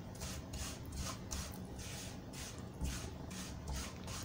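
Spatula stirring and scraping jaggery as it melts with ghee and a little water in a non-stick frying pan: soft swishing strokes about three times a second.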